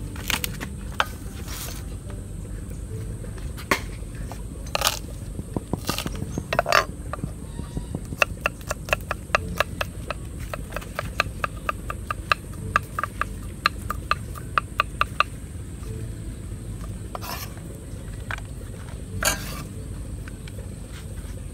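A utensil scraping and clicking in a bowl as small fish are mixed with seasoning for marinating, with a fast run of clicks for several seconds in the middle, over a steady low rumble.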